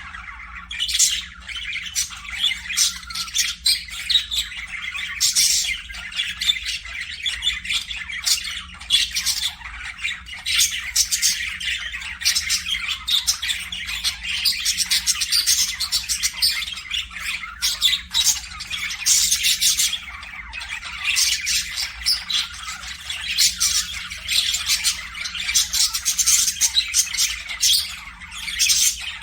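Budgerigars (parakeets) chattering without a break, a thick stream of overlapping warbles and chirps with frequent short, sharp squawks.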